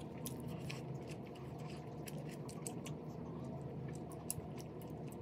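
Chopsticks and a metal spoon working through thick, creamy ramyeon noodles in a ceramic bowl: soft wet squishing with light, scattered clicks of utensils against the bowl, over a steady low hum.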